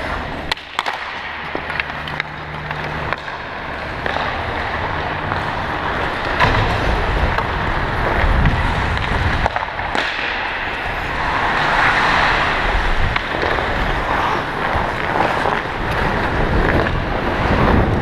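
Ice hockey skates scraping and carving on the ice, with a few sharp stick clacks at a faceoff in the first second, then continuous skating noise with a low rumble that grows louder as the skater picks up speed.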